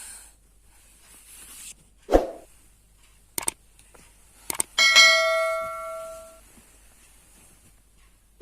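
A single bell-like metallic ring, several clear tones fading out over about a second and a half. It is preceded by a dull thump and two pairs of sharp clicks, and another thump comes at the end.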